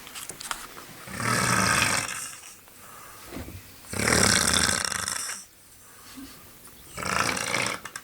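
A man snoring in his sleep: three loud snores about three seconds apart, each lasting a second or so.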